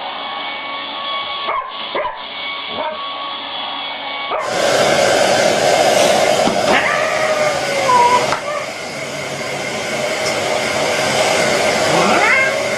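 Hair dryer blowing steadily while a dog whines and yips, its cries rising and falling in pitch. About four seconds in, the sound cuts abruptly to a louder, airier dryer with the dog still whining over it.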